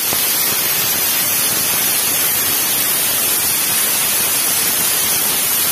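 Aluminium pressure cooker's weight valve venting steam with a loud, steady hiss, the whistle that signals the cooker has come up to pressure. It starts and stops abruptly.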